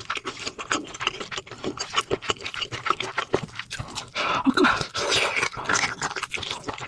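Close-miked eating sounds: a rapid, irregular run of wet chewing and mouth clicks, busier for a second or so past the middle.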